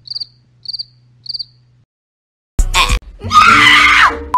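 Cricket chirping sound effect: short high chirps repeating a little under twice a second, the comic cue for an awkward silence. After a brief gap there is a sudden loud burst, then a loud woman's scream that falls in pitch near the end.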